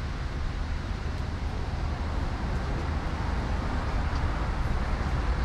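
Steady low background rumble of outdoor street traffic, with no distinct events.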